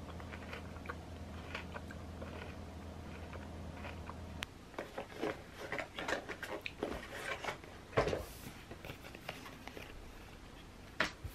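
Quiet eating sounds, with a spoon clinking in a glass cup, over a steady low hum that cuts off after about four and a half seconds. Then handling noises follow: rustling and clicking as things are taken out of a bag and lottery tickets are handled, with one sharp knock about eight seconds in.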